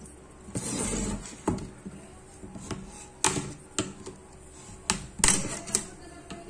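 Hard clicks and knocks of a monitor's panel and frame parts being handled and pried during disassembly, about half a dozen sharp strikes, with a short scraping sound about half a second in.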